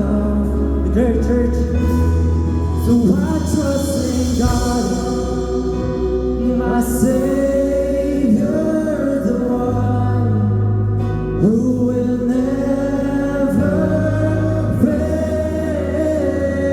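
Live worship music: a congregation and worship team singing a slow praise song over sustained bass and keyboard chords.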